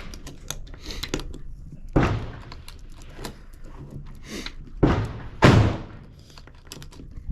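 Gunshots from a neighbouring shooting bay: three loud reports, one about two seconds in and two close together near five seconds, each fading with a short echo, with smaller knocks between them.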